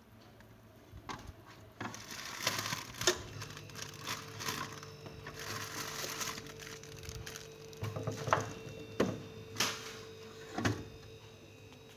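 Plastic packaging and fridge trays being handled during unboxing: crinkling and rustling with scattered clicks and knocks, a few sharper knocks in the second half.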